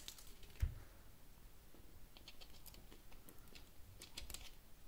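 Faint scattered clicks and scratches of fingernails picking at the wrapped plastic shell of a toy surprise ball while trying to open it, with a soft thump about half a second in.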